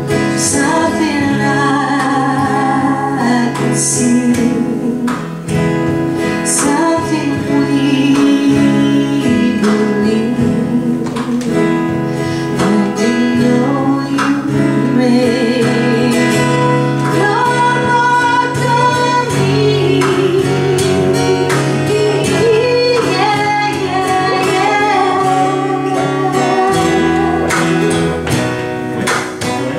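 Live acoustic folk song: acoustic guitars strummed and picked, with a singing voice carrying the melody over them.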